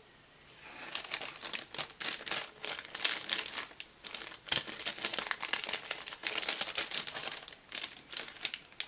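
Plastic packaging crinkling and crackling in quick, irregular handfuls as a roll of lace trim is unwrapped by hand. It starts about half a second in and goes on with brief pauses.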